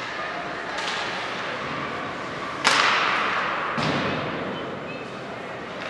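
Three sharp bangs, each trailing off in a long echo; the loudest comes about two and a half seconds in.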